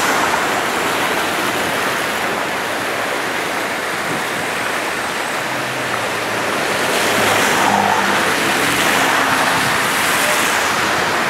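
Steady rushing of rainwater runoff flowing along a flooded street, with a car driving through the water near the end.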